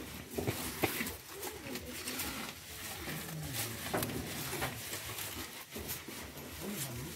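Water buffalo eating fresh-cut green fodder: crunching and rustling of stalks and leaves, with sharp snaps under a second in and again around four seconds. Low cooing calls sound in the background from about three seconds in.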